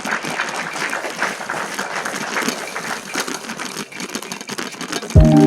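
E-bike rolling along a trail: a steady, uneven crackling rattle of tyres and bike parts. Music comes in abruptly near the end.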